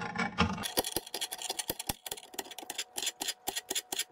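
Chef's knife chopping celery on a glass cutting board: quick, even knocks of the blade on the glass, about five a second, starting about a second in. The hard glass surface is bad for the knife's edge.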